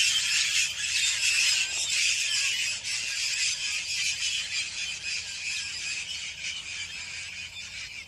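A flock of Cape parrots calling together in flight: a dense, continuous chorus of many shrill, overlapping screeches that grows gradually fainter toward the end.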